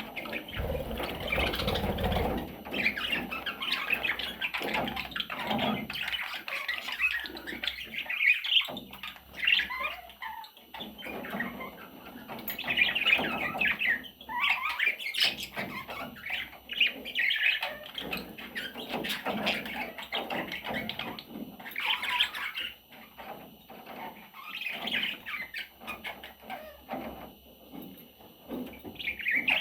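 Pet budgerigar chattering and warbling without pause, a busy stream of chirps and squawks.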